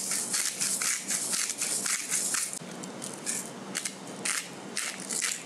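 Hand-twisted salt grinder and then a pepper mill grinding over the salad: a run of quick, sharp crunching grinds, thinning out after about three seconds with a short pause, then a few more grinds.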